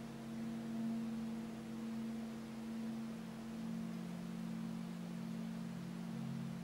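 Tibetan singing bowls sounding together in several low, sustained tones, while a large bowl is rubbed around its rim with a wooden stick so that it sings. The sound wavers gently in loudness, and a new, lower tone swells in about halfway through.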